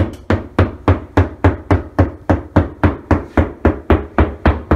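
A claw hammer tapping drywall in a quick, even run of knocks, about three to four a second, each with a short hollow ring: sounding the wall for a stud, where the hollow sound leads him to guess there is no stud behind it.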